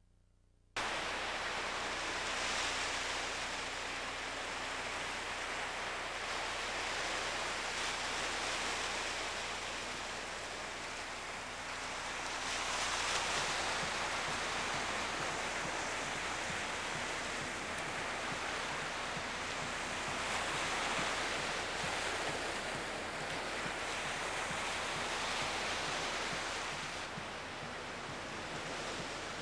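Ocean surf washing onto a sandy beach: a steady rush of waves that swells and eases every few seconds, starting suddenly about a second in.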